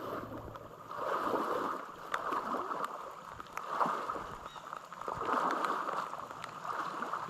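Water splashing and sloshing around a person's legs as he wades through thigh-deep river water, coming in repeated swells.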